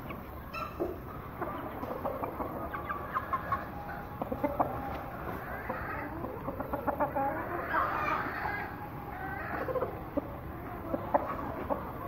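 Chickens clucking, a run of short clucks and calls scattered irregularly throughout.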